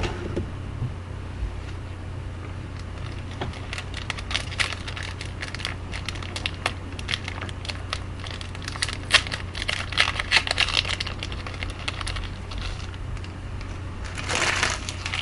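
Trading card pack wrappers crinkling and rustling as hockey card packs are torn open and the cards handled: many short sharp crackles, with a denser rustle near the end. A steady low hum runs underneath.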